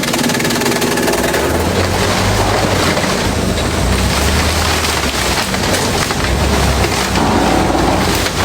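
Industrial bamboo shredder running under load: loud, continuous noise of bamboo being shredded over the machine's low hum, which shifts in pitch now and then.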